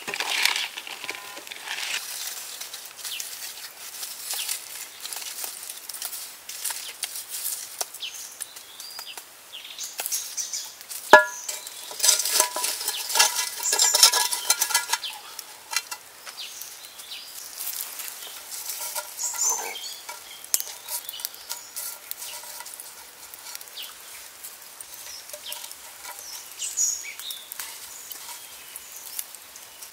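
Hand-cooking sounds: cut vegetables rustling and clicking as they are tossed by hand on a bamboo tray, then a sharp metallic clang about eleven seconds in, with a short ring, as the aluminium pot is handled. Light clinks and rustles follow as herbs and chillies are dropped into the pot.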